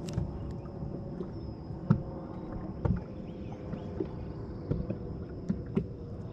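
Small waves slapping against a boat hull in short, irregular knocks, about one a second, over a steady low hum. A thin, steady high tone runs underneath.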